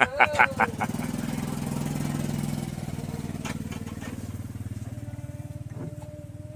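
A motor vehicle's engine passing with a low rumble that swells about two seconds in and then slowly fades, after a quick rattle of sharp clicks in the first second.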